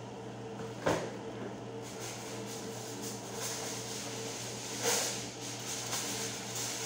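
Steady mechanical hum in a kitchen, with a single sharp knock about a second in and a brief scrape or rustle about five seconds in.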